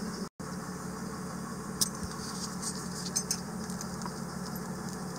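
A steady low mechanical hum, with a few faint light metallic clicks as hands work the fuel-line fittings on a marine diesel's injection pump.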